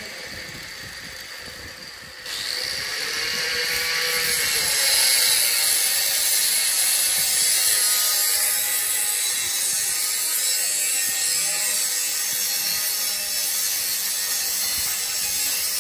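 Tool noise: a steady rasping, like cutting or grinding work, that starts abruptly about two seconds in and continues without a break.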